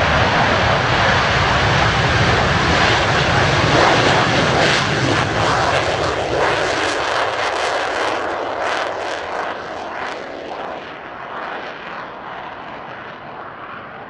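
Twin J79 turbojets of an F-4EJ Kai Phantom II at takeoff power as the jet lifts off, loud and rushing, crackling through the middle, then fading steadily as it climbs away.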